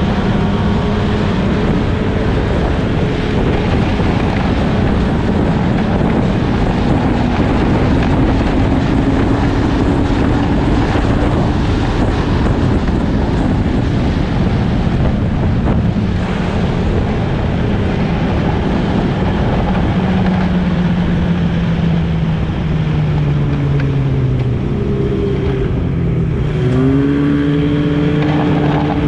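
Snowmobile engine running under way, its pitch rising and falling with the throttle: it holds steady, sinks lower about two-thirds through, and climbs sharply again near the end.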